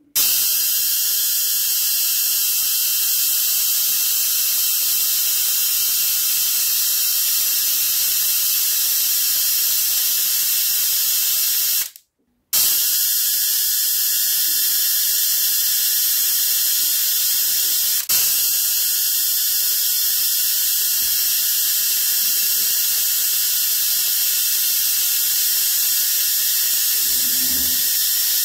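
Homemade spark-gap Tesla coil running, its spark gap firing as it charges and discharges, giving a loud, steady hiss-like buzz that starts suddenly. It cuts out for about half a second near the middle, then resumes, with a single sharp click a few seconds later.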